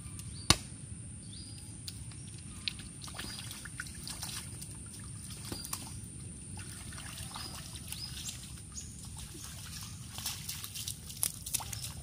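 Bare feet sloshing and splashing through a shallow muddy puddle, the small splashes coming more often near the end. A single sharp knock about half a second in is the loudest sound.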